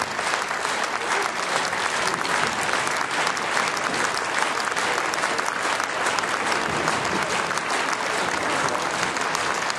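Theatre audience applauding steadily: dense, unbroken clapping that holds at an even level throughout.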